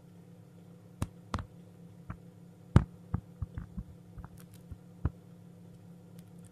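About a dozen irregular sharp taps and knocks, the loudest a little under 3 s in, from chicks moving and pecking among eggs in an incubator. A low steady hum runs underneath.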